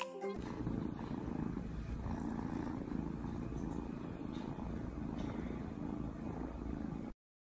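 Kitten purring close to the microphone, a steady low rumbling purr that cuts off suddenly near the end.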